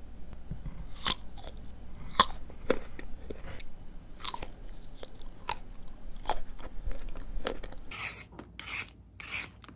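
Crisp crunching bites and chewing of green Indian mango slices, sharp crunches spaced about a second apart. Near the end come four short scraping strokes, a vegetable peeler taking the skin off a whole green mango.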